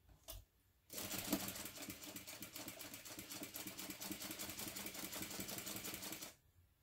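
Sewing machine stitching through layered fabric: a fast, even run of needle strokes that starts about a second in and stops about a second before the end, after a couple of light clicks.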